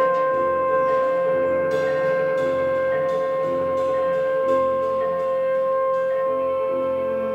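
Live small-group jazz: a trumpet holds one long, steady high note while an upright bass plays shifting notes underneath and cymbals ring several times in the middle.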